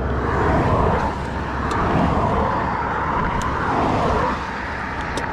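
Highway traffic passing close by: tyre and engine noise swelling and fading as vehicles go past, easing off a little about four seconds in.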